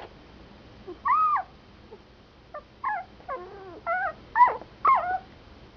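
Newborn puppies, two or three days old, squealing and whimpering while feeding: a string of about seven or eight short, high, arching squeaks starting about a second in.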